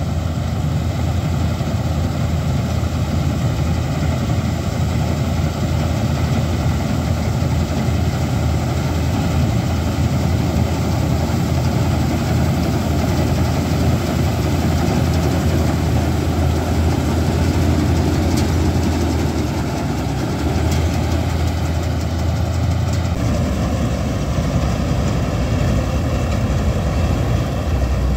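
A John Deere tractor-powered Standard TSC-513 combine harvester runs steadily while cutting and threshing ripe paddy: a continuous, loud engine and machinery drone. Its low tone shifts about 23 seconds in.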